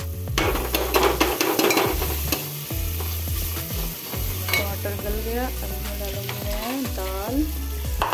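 A steel ladle stirring and scraping against the inside of a pressure cooker through sizzling onion-tomato masala, with the oil frying steadily. A few sliding pitched sounds come in the background from about halfway to near the end.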